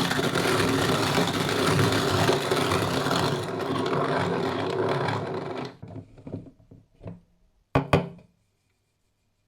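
Antique Italian hand-cranked coffee grinder grinding beans: a steady, loud grind that trails off and stops about six seconds in, followed by two sharp knocks close together near the end.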